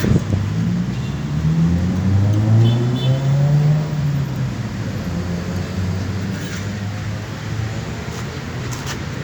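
An engine rising in pitch as it revs up over a few seconds, then running at a steady speed and slowly getting quieter.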